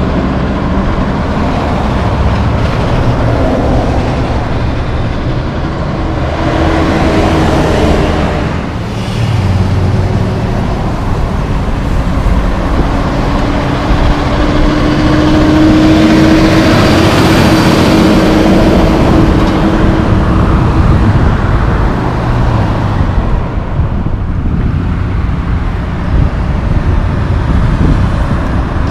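Heavy diesel trucks, loaded short-wood logging trucks among them, passing one after another in steady road traffic: engine drone and tyre noise, loudest in a long pass around the middle.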